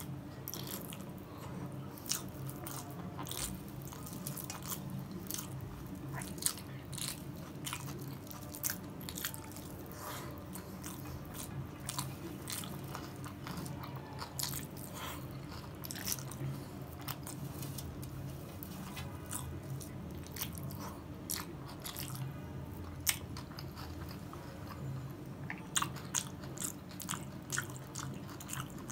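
Close-miked chewing of a mouthful of soft rice and mashed bhorta, with frequent sharp wet mouth clicks and lip smacks. A steady low hum runs underneath.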